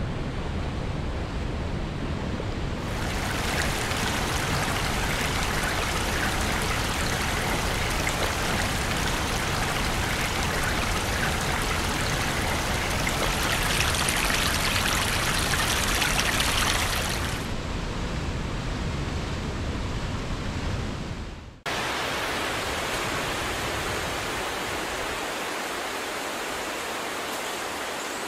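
Fast mountain river rushing over rapids: a steady white-water rush. About three-quarters of the way through it cuts off abruptly and a slightly quieter, even rushing noise with less low rumble takes over.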